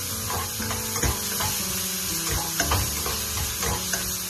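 Chopped garlic and sliced onion sizzling in hot oil in a frying pan while a spatula stirs them, with a few short scrapes of the spatula against the pan. The onion is being sautéd until translucent.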